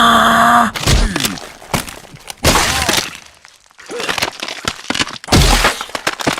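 A loud held tone that cuts off under a second in, then a chaotic run of crashing, cracking and smashing sound effects, like glass breaking.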